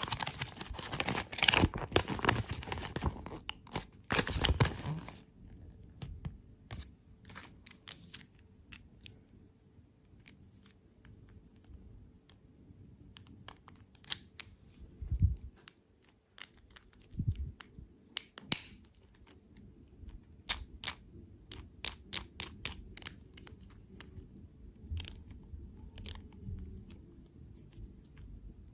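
Close-miked crinkling and crackling for about five seconds, then scattered small clicks and taps with two soft low thumps: handling sounds from candy and dessert ASMR.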